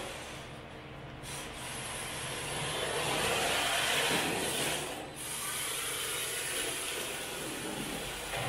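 Rear-wheel-drive MST RC drift car driving and sliding on a concrete floor, its tyres scrubbing and its drivetrain running, loudest about four seconds in with a short dip just after five seconds.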